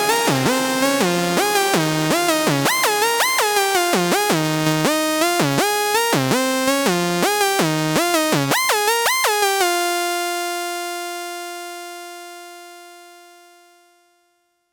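Electronic jam on a Roland Aira Compact S-1 synthesizer and P-6 sampler: a synth line of quick notes that glide in pitch into one another. About ten seconds in, it stops on one held note that rings out and slowly fades away, ending the piece.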